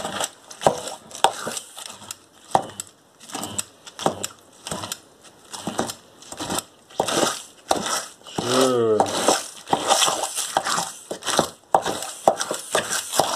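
Immersion blender pulsed in short, irregular bursts, chopping strawberries in a glass bowl, with one slightly longer run about two-thirds of the way in.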